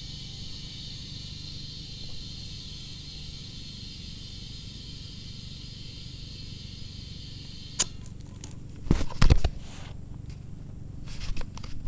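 Steady hiss of air flowing through a portable air tank's hose and chuck held on a tire valve stem. It cuts off with a click about eight seconds in, followed by a few loud knocks and clatter. The tank is empty, so the air is flowing out of the tire into the tank.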